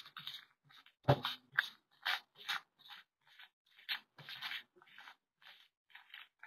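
Tarot cards swirled face down across a cloth-covered table by both hands: a run of short, irregular sliding and rustling swishes, with a heavier thump about a second in.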